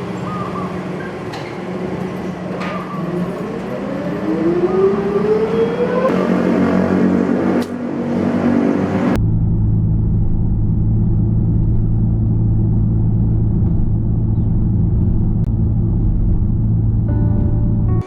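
A car driving: the engine note rises as it accelerates over the first several seconds. About nine seconds in the sound changes abruptly to a steady low drone of road and engine noise.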